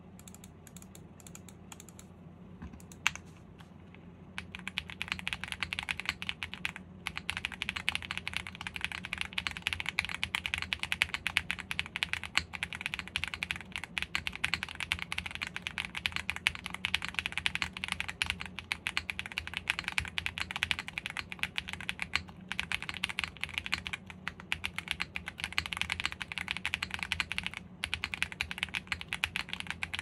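Owlab Mr. Suit R2 mechanical keyboard with a POM plate, full foam dampening, lubed Zaku linear switches and GMK Norse keycaps being typed on. A few scattered keystrokes, one sharp and loud, come first, then fast continuous typing starts about four seconds in, with a few short pauses.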